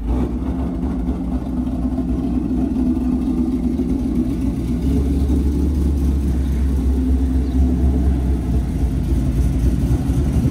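2018 Ford Mustang GT's 5.0 V8 idling steadily through catless headers, an X-pipe and an AWE Touring cat-back exhaust: an even, low exhaust note with no revs.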